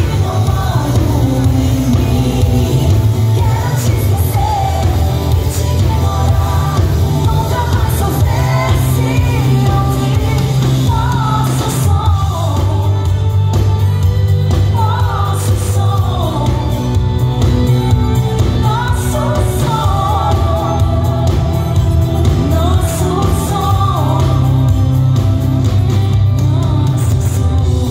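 Live pop song: a woman singing lead over a band with drums and electric bass, the bass line heavy and steady throughout.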